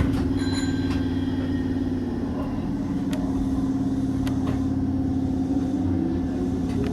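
Hanshin 5001-series electric train running along the track, heard from on board: a steady motor hum whose pitch rises slightly near the end, with a few sharp clacks from the wheels over rail joints and a brief high whine in the first second.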